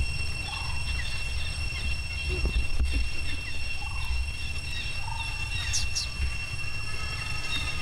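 Outdoor ambience: a steady high-pitched insect drone, short chirping calls every second or so with a quick pair of higher chirps about six seconds in, over a low rumble of wind or handling noise.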